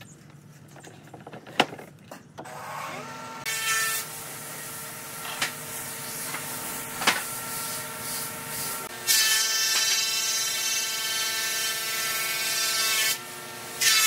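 Wooden parts knocking as a folding table is handled, then a gravity-feed paint spray gun hissing as it sprays finish, in spells with a short break near the end, over a steady whine.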